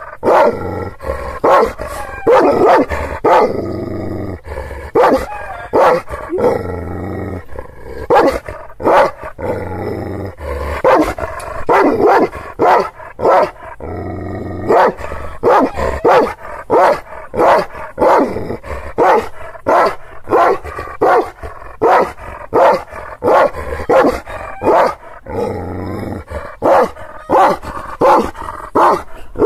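Aksaray Malaklı Anatolian shepherd dog (Kangal type) barking deep and loud over and over, roughly one to two barks a second, with drawn-out stretches between some of the barks. These are angry, territorial warning barks at a stranger it has not seen before, guarding its owner's yard.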